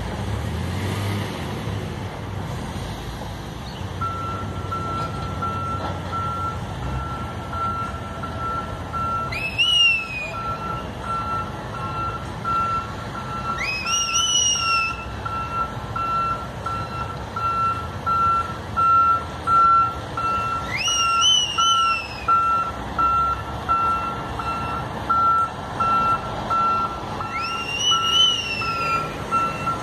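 Reversing beeper of a double-trailer tractor-trailer, starting a few seconds in and beeping steadily about twice a second as the rig backs up, over the low running of its diesel engine. Four short high squeals rise and fall in pitch, the loudest sounds.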